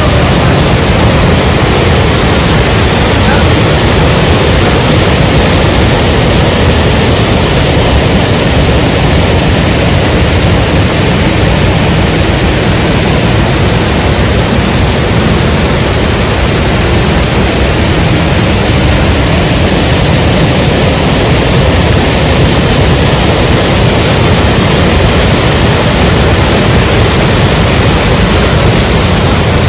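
Steady, loud rush of a small waterfall, an unbroken roar of falling water.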